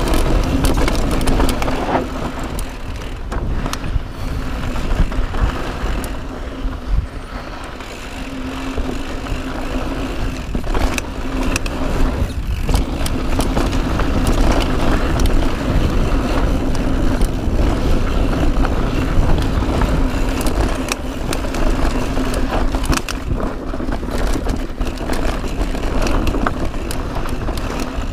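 Mountain bike ridden fast down a dirt trail: a steady rumble of tyres and wind buffeting the microphone, broken by frequent clicks, knocks and rattles from the bike over bumps.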